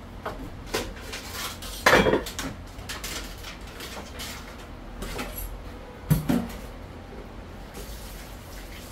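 Dishes and utensils clattering on a kitchen countertop: a few knocks and clinks, the loudest about two seconds in and another about six seconds in. Near the end a tap starts running into the sink.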